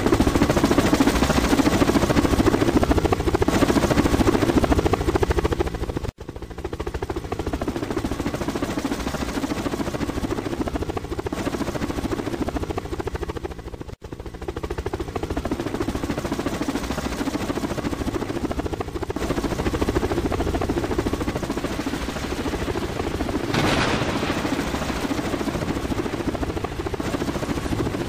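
Helicopter rotor sound with a steady, fast blade chop over a constant engine noise. It cuts out for an instant twice, about six and fourteen seconds in, and swells briefly near the end.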